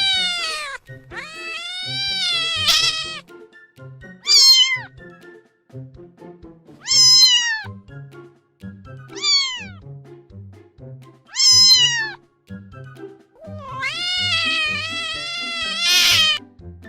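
Cat meowing over and over: a string of about seven meows, some short with a falling pitch, and two long drawn-out ones, the second near the end of the run.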